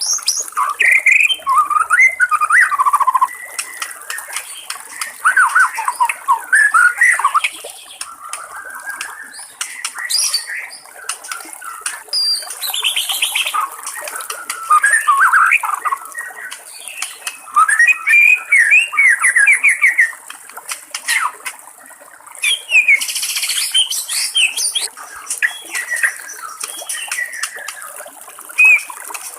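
White-rumped shama singing a long, varied song of whistled phrases and quick trills, one phrase after another with short gaps.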